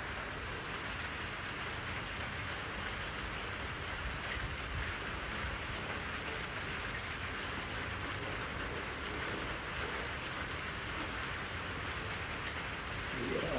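Steady rain-like hiss, with a clear plastic bag crinkling as it is pulled off a bundle of fern saplings.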